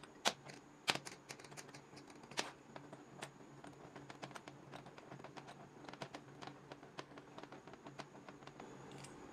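Steel parts of a homemade screw clamp clinking and ticking as it is handled on a metal bench top and its threaded screw is turned by hand. A few louder clacks come in the first two and a half seconds, then a run of light, quick ticks.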